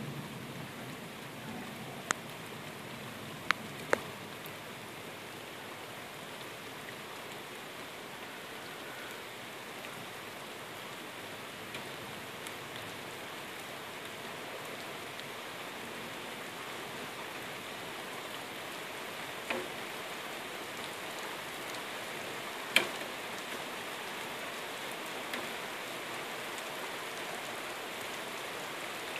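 Rain falling steadily. A handful of sharp clicks stand out, three in the first few seconds and a few more later on, the loudest about three-quarters of the way through.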